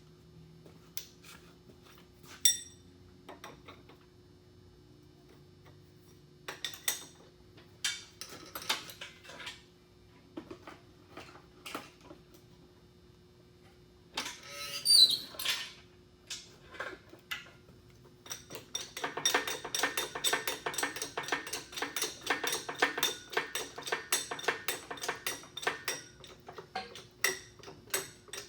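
Metal clanks and knocks from hand tools and engine parts being handled, with a louder scraping burst about halfway through. A long run of rapid, even clicking follows in the second half.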